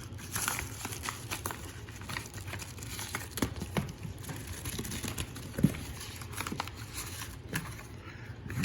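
Packaging crinkling and rustling as it is handled, with many small clicks and one sharper knock about two-thirds of the way through.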